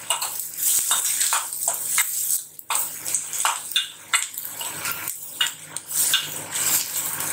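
Metal spatula scraping and clinking against a stainless steel kadai in quick, irregular strokes while onions and garlic are stirred, with oil sizzling under it.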